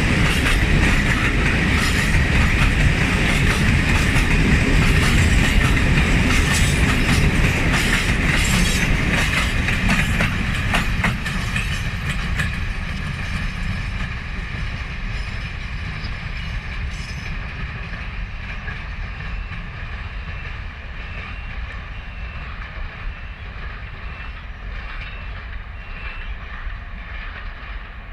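A train passing close on the rails, its wheels clattering over the rail joints, then fading away steadily as it moves off.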